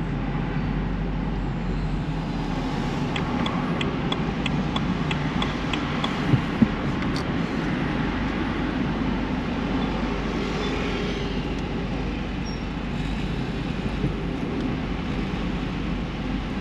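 Steady road and traffic noise from a car being driven through city streets. A short run of quick, even ticks comes about three seconds in, and two sharp knocks come about six seconds in.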